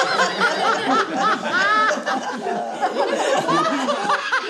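A laughter-club group laughing together, many voices overlapping in continuous fits of laughter with giggles and high hoots.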